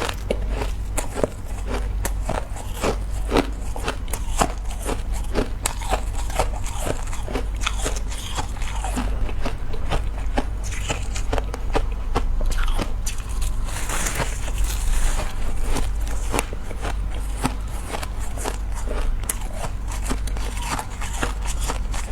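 Ice being bitten and chewed close to the microphone: a dense run of irregular crisp crunches and crackles, over a steady low hum.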